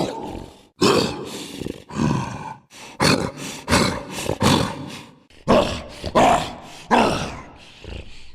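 A person's voice imitating Bigfoot: a quick series of about a dozen short roaring and grunting calls, each starting sharply and trailing off, roughly one or two a second.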